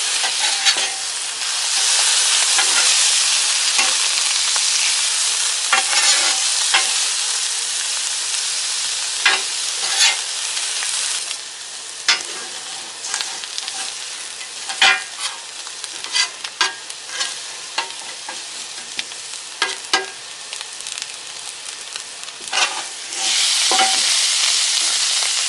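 Thin-sliced ribeye, green peppers and mushrooms sizzling on a hot Blackstone flat-top griddle, with many sharp clicks and scrapes of a spatula working the food. The sizzle eases about eleven seconds in and grows loud again near the end.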